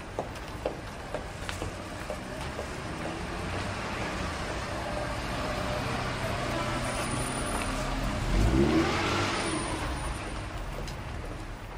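Busy street traffic: a steady wash of car engines and tyres, with a few sharp clicks in the first second. It builds to a vehicle passing close about eight seconds in, the loudest moment, its engine note rising and then falling away.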